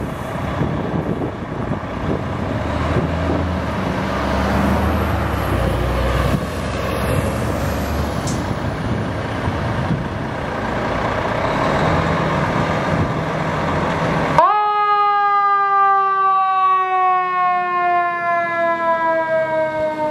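Fire engine's diesel engine running as the rig pulls out. About three-quarters of the way through, its siren starts with a sharp rise in pitch and then slowly falls.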